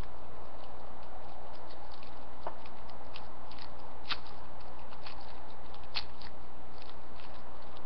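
Break-away ABS support on a 3D print being cracked apart by fingers and fingernails: irregular small crackles and clicks, with sharper snaps about two and a half, four and six seconds in, over a steady low hum.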